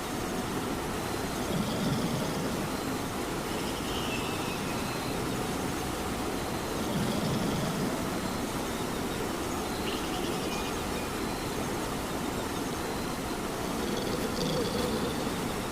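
Steady rain with a sleeping cat snoring over it: a slow low swell of breath three times, with a faint whistle falling in pitch every few seconds.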